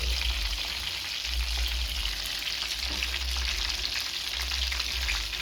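Chicken pieces frying in hot oil, a steady crackling sizzle, with a low rumble that comes and goes underneath.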